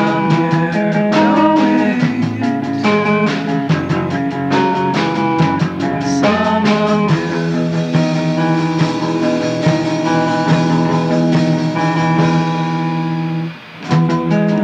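Background music: a song with sustained pitched notes and chords, which drops away briefly near the end and then picks up again.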